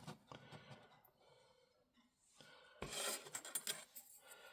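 Mostly quiet, then a sharp click about three seconds in and a second of small clicks and rustling as the radio's case screws are handled and compared.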